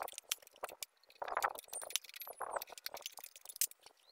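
Metal tools and engine parts clinking and clicking as a Supra X 125 motorcycle engine is taken apart: a quick, irregular series of short clicks and clinks.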